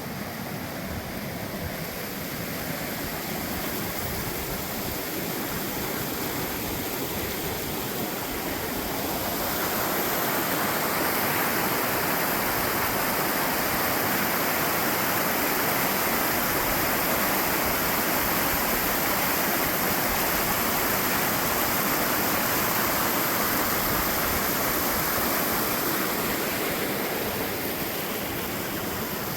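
Mountain stream rushing beneath a trail footbridge: a steady wash of running water that grows louder about ten seconds in and eases slightly near the end.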